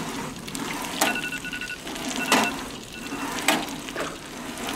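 Pizza oven drawer running on its metal ball-bearing slide rails: a rolling, rattling slide broken by a sharp knock about every second and a quarter as the drawer is worked back and forth.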